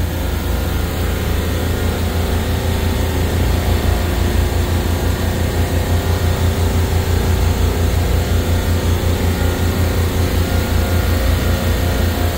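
Supermarket refrigeration compressor rack running: a loud, steady low hum with a quick, even throb.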